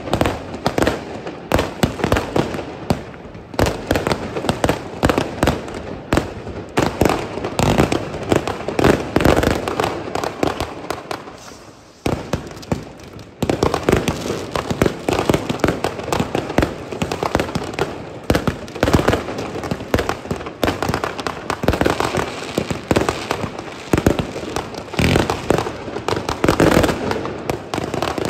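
Many fireworks and firecrackers going off at once: a dense, continuous barrage of overlapping bangs and crackles. It thins out briefly about ten to twelve seconds in, then starts up again sharply.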